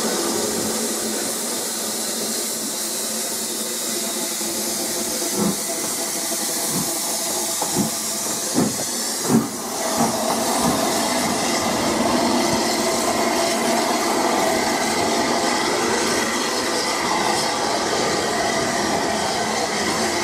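Steam locomotive moving slowly past close by, with a steady hiss of steam and a handful of short knocks about halfway through.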